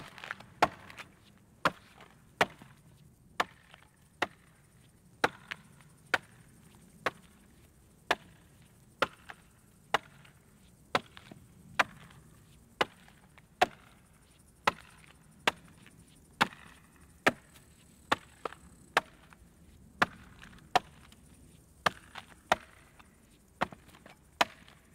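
Axe blows chopping into the trunk of a standing tree being felled by hand, about one sharp stroke a second in a steady rhythm.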